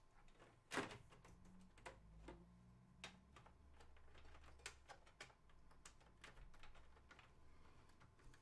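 Faint, scattered clicks and taps of hands handling cables and plastic parts inside a PC case, with one sharper click about a second in.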